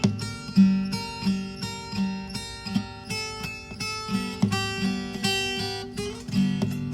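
Background music of acoustic guitar, plucked and strummed in a steady rhythm.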